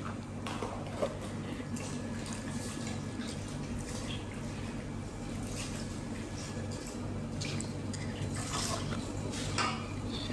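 Hands washing pieces of mangala fish in a pot of water: irregular soft splashing and dripping as the fish is rubbed and lifted.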